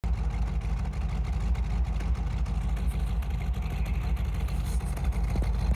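A 426 Hemi V8 engine in a 1970 Plymouth Barracuda running steadily, with a fast, even pulse and no revving.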